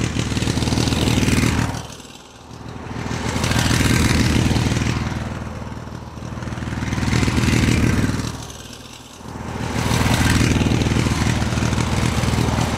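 Motorcycle engine running and being revved in waves: the sound drops away sharply about two seconds in and again near nine seconds, then builds back up each time.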